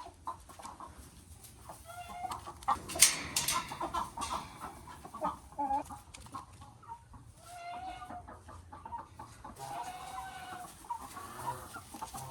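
Chickens clucking, many short calls overlapping, with a sharp, loud noisy burst about three seconds in.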